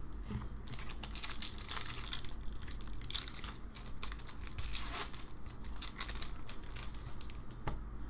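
Trading-card pack wrapper crinkling and tearing as a Topps Star Wars Chrome pack is opened by hand. It sounds as a dense run of irregular crackles starting just under a second in.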